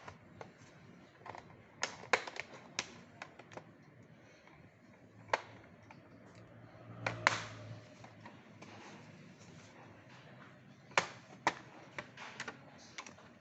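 Plastic snap-clips of a laptop's bottom cover clicking loose as the case is pried open: sharp, irregular clicks, some in quick clusters, with pauses between.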